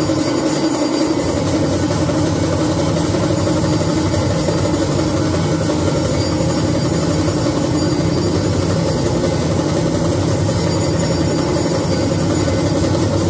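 Temple bells and drums sounding together in a continuous, even din during aarti, with a rapid steady beat under many ringing tones.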